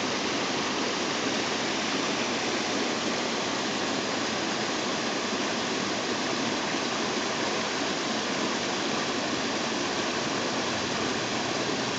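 Small creek rushing steadily over a low cascade of logs and rocks.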